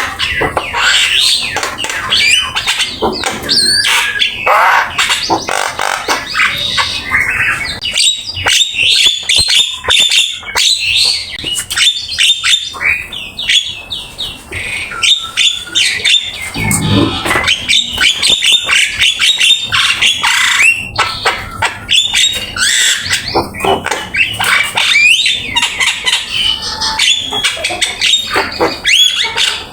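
Javan myna (jalak kebo) singing non-stop: a fast, varied run of harsh squawks, chatters, clicks and whistled glides, packed with mimicked phrases.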